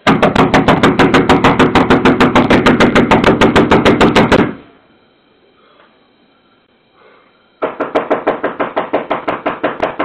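A fist pounding rapidly on a front door, about seven blows a second for some four and a half seconds, picked up by a video doorbell's microphone. After a pause, a second, slightly fainter run of fast knocking on a window starts a couple of seconds before the end.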